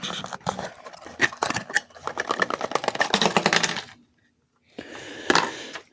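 Hands rummaging through scope packaging and its accessories: a rapid run of small clicks and rustles for about four seconds, a brief dropout, then fainter handling and one sharp click near the end.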